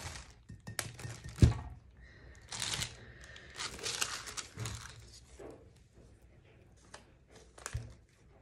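Plastic sheeting crinkling and rustling under hands as a glass block is handled on it. There are sharp knocks of the block on the table about one and one and a half seconds in, and a softer one near the end.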